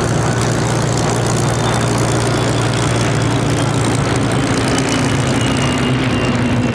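Steady drone of the massed V-12 piston engines of a formation of Spitfires and Hurricanes flying over, with the pitch sagging slightly in the second half.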